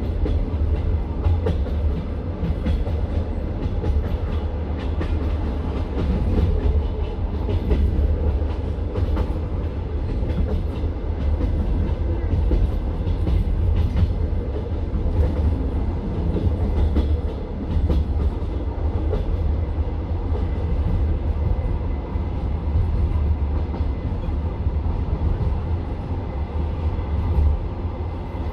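Passenger train moving along the track: a steady rumble of the carriage wheels on the rails with light, irregular clicking and rattling.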